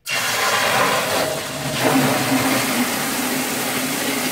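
Water gushing out of the opened flush ball valve at the bottom of a Rusco 1-60ST-F spin-down sediment trapper into a plastic bucket, flushing trapped sediment out of the screen housing. It comes on suddenly as the valve opens and runs as a loud, steady rush.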